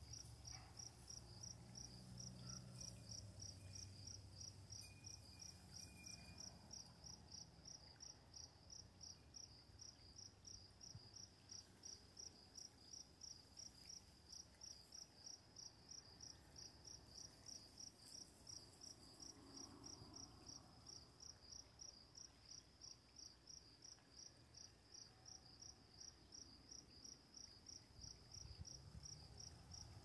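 Cricket chirping faintly in a steady, even rhythm, about two chirps a second.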